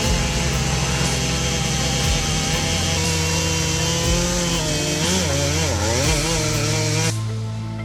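A power saw running hard as it cuts through wood, its pitch wavering under load. The high, noisy part of the sound cuts off abruptly near the end.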